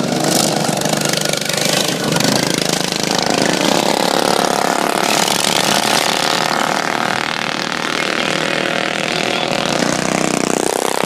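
Several stock riding lawn mower engines running flat out in a race, a continuous engine drone. A higher engine note comes in about three seconds in and fades near the end.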